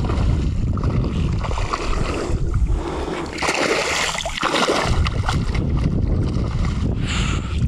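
Water splashing as a hooked bonefish thrashes at the surface close to the canoe, over a steady low rumble of wind on the microphone.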